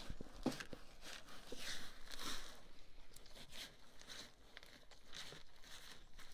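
Bison eating corn from a feed trough: irregular crunching and chewing, with kernels rustling as their muzzles push through the grain.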